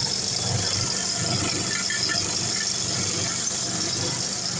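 A 2x72 belt grinder running steadily: a motor hum with the high hiss of the abrasive belt, holding an even level throughout.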